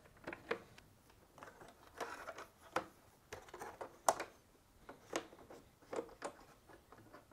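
Soft, scattered plastic clicks and rubbing as a refrigerator's plastic water line and wire harness are handled and pressed into plastic retainers inside the dispenser housing, with the sharpest click about four seconds in.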